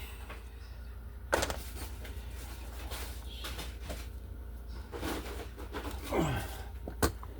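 Scattered knocks, scrapes and clicks of tools and objects being handled while someone rummages, with a sharp click near the end, over a low steady hum.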